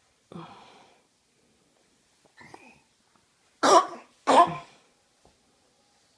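Two loud coughs in quick succession about three and a half seconds in, after a fainter breathy sound near the start.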